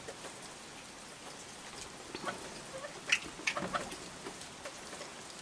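Steady light rain falling, with raccoons feeding close by: a few short sharp squeaks and clicks from them between about two and four seconds in.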